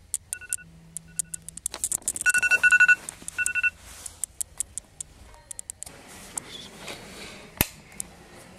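Phone alarm going off: short high beeps in irregular bursts, densest about two to three seconds in, that stop a little under four seconds in. Clicks and rustling run through, with one sharp knock near the end.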